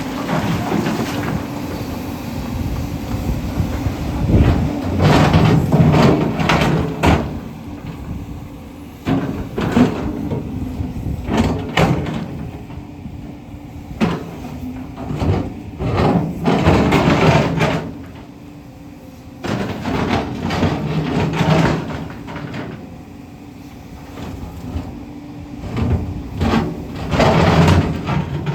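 JCB 245 HD LR long-reach excavator's diesel engine running steadily, broken every few seconds by bouts of scraping and clattering as the bucket digs into rock.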